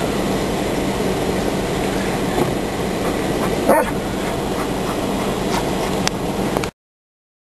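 Steady road and engine noise of a vehicle driving, heard from inside. About four seconds in there is a brief high sound that falls in pitch, and the noise cuts off abruptly near the end.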